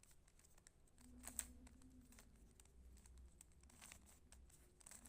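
Faint plastic clicks of a Rubik's cube's layers being twisted by hand, a few scattered clicks over a low steady room hum.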